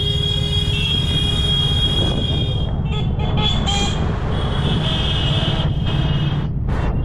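Dense street traffic heard from a moving motorbike: a steady low rumble of engine and wind with vehicle horns honking, several at once. There are louder horn blasts around three and five seconds in and short sharp ones near the end.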